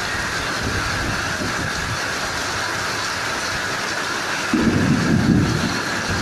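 Heavy rain pouring steadily, a dense hiss. About four and a half seconds in, a loud low rumble comes in and lasts about a second and a half.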